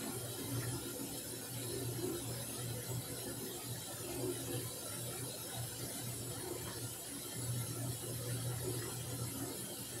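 Samsung washing machine running, its motor hum coming and going in stretches of a second or two as the drum turns, with light mechanical clicking over a steady hiss.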